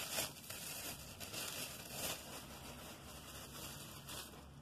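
Soft rustling and crinkling of product packaging being handled, in a few short bursts.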